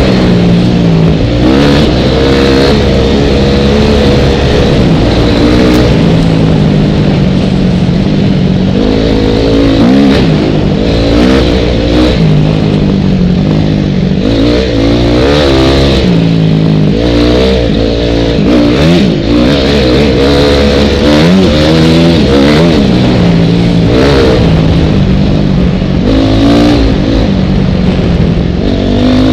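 2004 Honda CRF250R's single-cylinder four-stroke engine running hard along the trail. Its pitch rises and falls over and over as the throttle is opened and rolled off.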